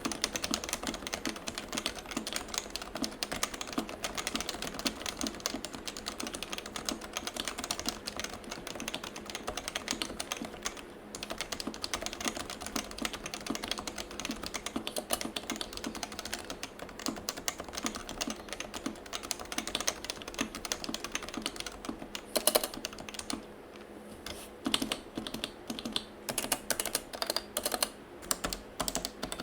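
Typing on a Topre keyboard in a polycarbonate Sho SRX case with a stainless steel plate, lubed Realforce sliders, stock 55g rubber domes and Realforce 103UB keycaps. Fast, continuous typing on the letter keys gives way about three-quarters of the way through to slower, separate, louder presses of the modifier keys and the lubed, tuned spacebar.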